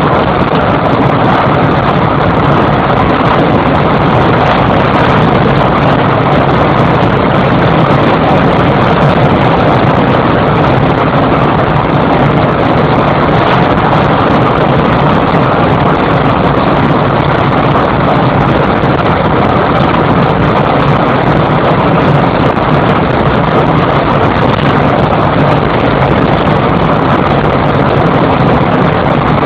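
Steady engine and tyre noise inside a car cruising at highway speed, heard in the cabin.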